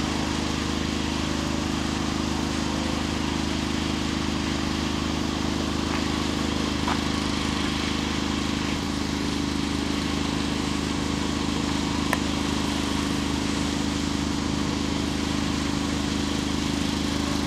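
A steady, even low mechanical drone with hiss over it, unchanging throughout; a few faint clicks come through about six, seven and twelve seconds in.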